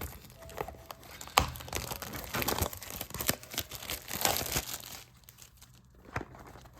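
The charger's cardboard retail box is being opened by hand, with crinkling and tearing packaging and sharp crackles. The handling dies down about five seconds in, leaving one more click near the end.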